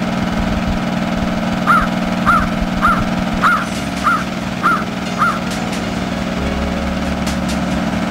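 A gull calls seven times in quick succession, a little under two calls a second, over the steady drone of a fishing boat's engine.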